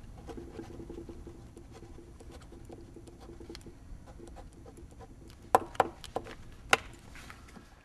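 Faint background noise with scattered light clicks and taps, then four sharp clicks or knocks close together about five and a half to seven seconds in.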